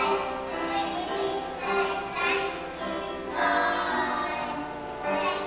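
Young children singing a song together, note after note with no break.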